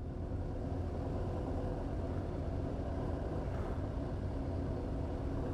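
Kawasaki ZX-10R's inline-four engine idling steadily while the bike stands still.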